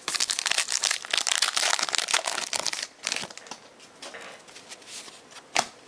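Crimped wrapper of a 2011 Topps Allen & Ginter card pack crinkling as it is torn open by hand: a dense crackle for about three seconds, then softer rustling and a single sharp click near the end.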